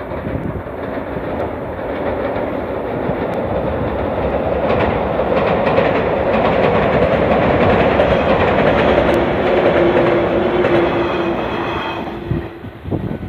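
A JR Nara Line electric train passing: the rolling noise of its wheels builds up, holds loud for several seconds, then dies away near the end, with a steady tone sounding for a few seconds just before it fades.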